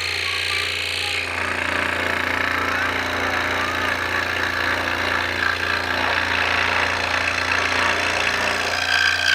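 Electric power saw running and cutting through a piece of wood, with a steady motor hum throughout. About a second in, the noise of the blade biting into the wood comes in and carries on steadily.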